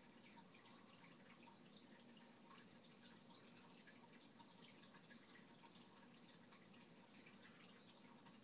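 Faint, irregular water drips and trickling from a planted aquarium's pump-driven water circulation, over a low steady hum.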